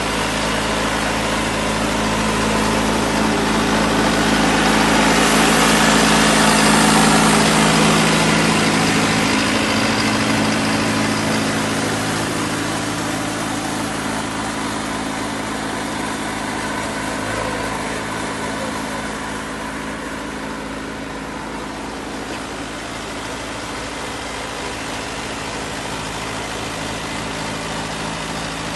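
Mahindra Arjun 555 tractor's turbocharged diesel engine running steadily with a 13-tine cultivator hitched. It grows louder about four seconds in, then eases off from about ten seconds.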